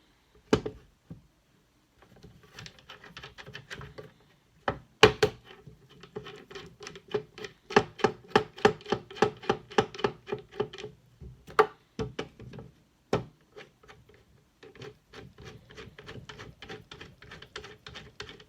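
Knife blade stroked back and forth on the 2,000-grit side of a whetstone: a steady run of short scrapes, about two to three a second, touching up an edge that is already sharp. A few sharp knocks break in.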